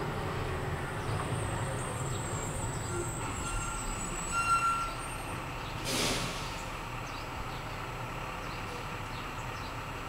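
Steady low background rumble, with a brief hiss about six seconds in.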